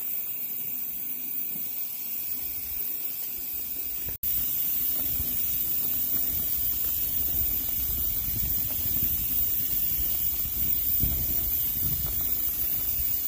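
Coleman propane camp grill hissing steadily. The sound breaks off for an instant about four seconds in and comes back louder, now with a low rumble under the hiss.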